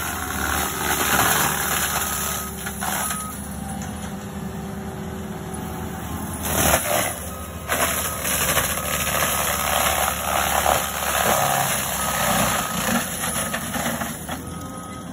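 Compact track loader's diesel engine running under load while its forestry mulcher drum spins and grinds through brush and small trees, in loud uneven bursts, the heaviest about seven seconds in. The loader's backup alarm beeps a few times.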